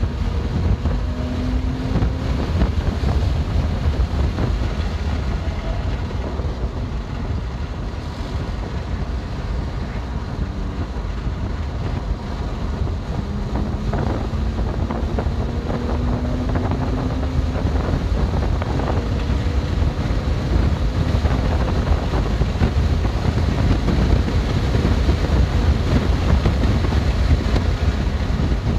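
BMW M2 Competition's twin-turbo straight-six driven hard on track, under heavy wind and road rumble. The engine note climbs twice under acceleration, about a second in and again about halfway through.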